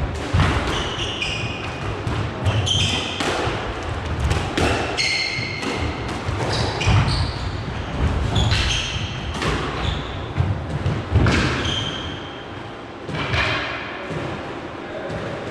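Squash rally: the ball struck again and again, sharp hits of racket and front wall at an irregular pace, with short high squeaks of shoes on the court floor between them.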